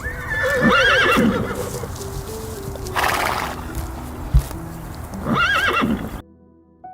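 Horse whinnying twice, a quavering call about a second in and another near the end, with a breathy rush of air between them, over soft background music.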